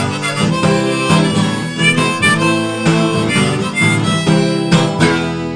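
Background music: an instrumental passage between the sung lines of a Russian-language song.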